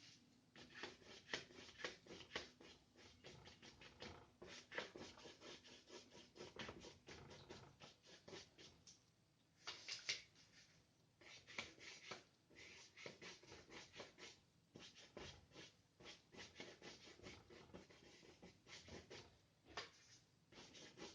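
Paintbrush loaded with grey gouache scrubbing across paper in quick, faint, repeated strokes, with a few short pauses.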